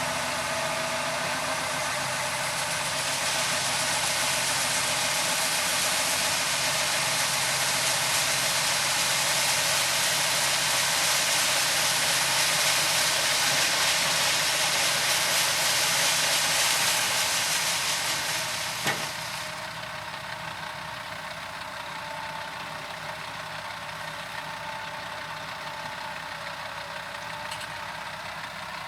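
Farm machinery engine running steadily under a loud rushing noise that drops away about two-thirds of the way through, leaving the quieter engine; a single sharp click comes just as it drops.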